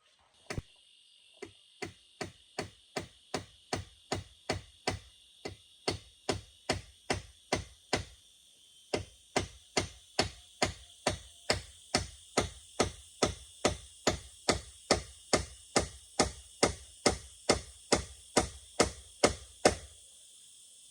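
Repeated chopping strikes on wood, a steady rhythm of a little over two blows a second with a short break about eight seconds in, over a constant high drone of insects.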